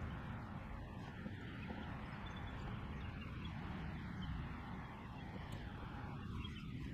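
Faint steady low rumble of background noise, with a few faint scattered ticks.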